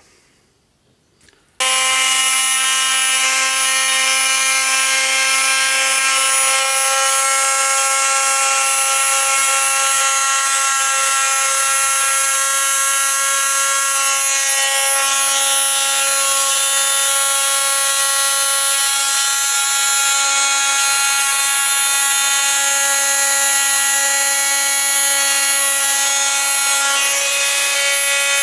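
Handheld electric delta (detail) sander switched on about a second and a half in and running with a loud, steady whine, used to sand the engine's crankshaft stub so the tight-fitting belt pulley will slide on.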